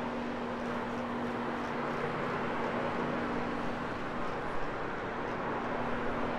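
Rotary carpet-cleaning floor machine running steadily as it is worked over level-loop carpet: a constant motor hum under an even rushing scrub. This is the machine-agitation stage of a low-moisture clean, before extraction.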